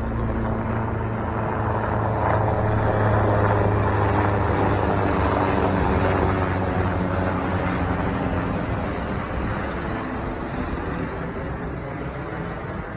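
Helicopter flying overhead, a steady droning rotor noise that swells to its loudest a few seconds in and then slowly fades as it moves off.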